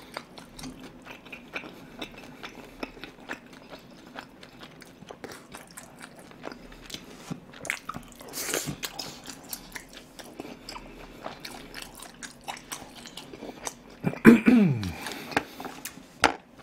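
Close-miked chewing and biting of crispy, chewy glutinous-rice sweet-and-sour pork (guobaorou): a steady run of small wet clicks and crunches. A short vocal sound falling in pitch comes from the eater about fourteen seconds in.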